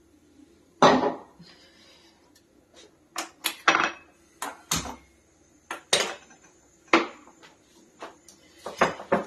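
Kitchen utensils and cookware being handled, clinking and knocking: about a dozen sharp, irregular clanks with short quiet gaps between them.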